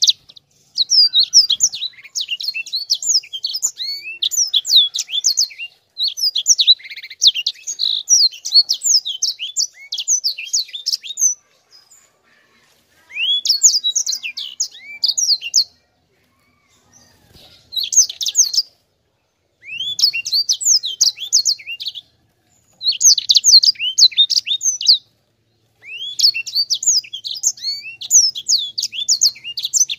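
Caged sanger, a small canary-type finch, singing in long rolling runs of rapid high chirps and trills, each run lasting a few seconds before a short pause.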